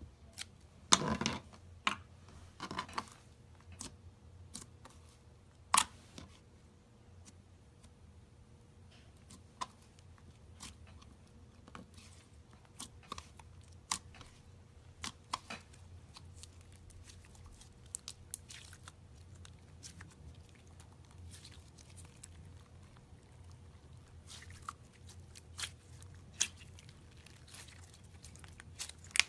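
Slime being squished and poked by hand: scattered sharp pops and clicks, with a couple of longer squishes in the first few seconds.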